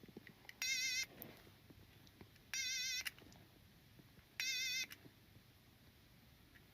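A short warbling electronic tone sounding three times, each about half a second long and about two seconds apart, identical each time.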